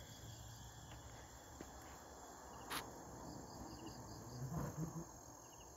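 Faint insects chirping: thin steady high tones with short repeated pulses, and a single short click about halfway through.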